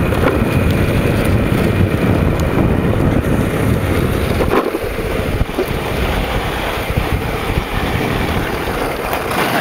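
Wind buffeting the microphone while riding a home-built electric mini ATV (a 24-volt DC motor fed 48 volts), with the machine's running noise underneath. There is a click about four and a half seconds in, after which the low rumble eases a little.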